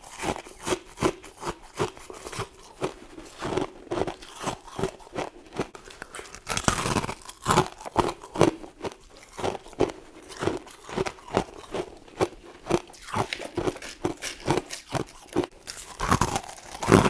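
A person biting and chewing chunks of white frost, a steady run of crisp crunches about two a second.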